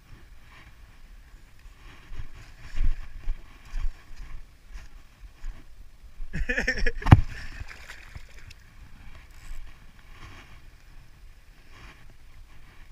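Wind buffeting the microphone over small waves lapping on a pebble shore, with a short louder burst that ends in a sharp click about seven seconds in.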